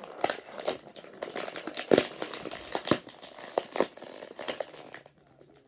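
Plastic blister packaging of a toy action figure crinkling and clicking as it is worked open by hand, a run of sharp crackles that dies away near the end.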